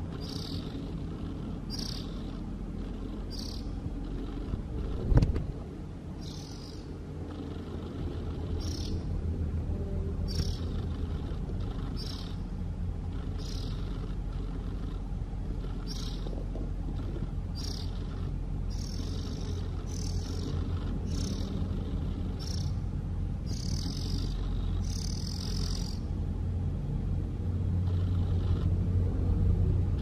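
Juvenile oriental magpie-robin giving short, high calls about once a second, thinning out near the end, over a steady low hum. A single sharp thump about five seconds in.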